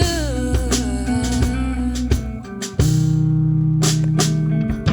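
Live R&B band playing between sung lines: electric guitar, bass guitar and drum kit. A held low bass chord rings for about two seconds in the second half.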